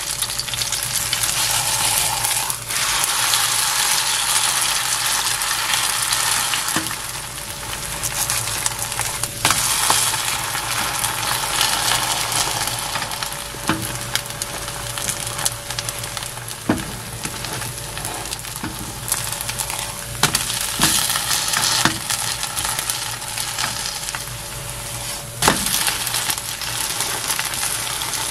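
Gochujang and yeolmu-kimchi pancake batter sizzling steadily in hot oil in a nonstick frying pan, louder and softer by turns. Spatulas pressing it flat give about eight short sharp clicks against the pan, the loudest near the end.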